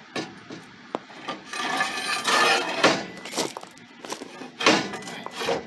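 Steel tow-bar crossbar scraping as it is slid through its mounting tube, with a string of sharp metal knocks and clinks as the bracket and bolts are handled.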